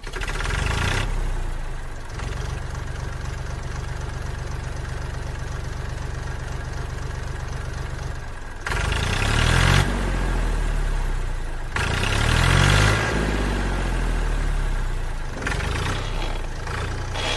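An engine running with a fast, even putter for about eight and a half seconds, then louder, its pitch rising and falling twice as if revved.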